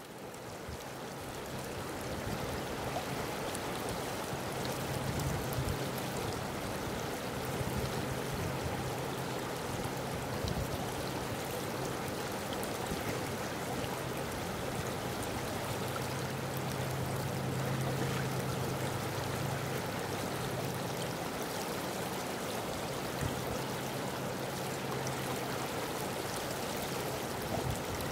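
Steady rush of flowing river water, fading in over the first couple of seconds, with a faint low hum that swells and fades now and then.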